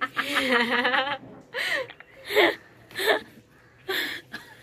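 A woman laughing hard: one long wavering laugh, then several short bursts of laughter spaced under a second apart.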